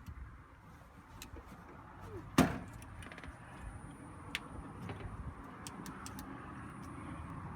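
A single sharp knock about two and a half seconds in, with a few fainter clicks over steady background noise.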